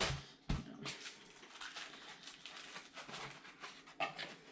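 A few sharp knocks in the first second, then faint rustling and small clicks as parts and packaging are handled.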